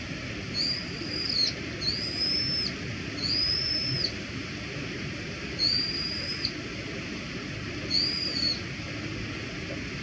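Brown-eared bulbul giving its ordinary contact call: five high, drawn-out, fairly level-pitched notes, each just under a second long, three in quick succession and then two more spaced out.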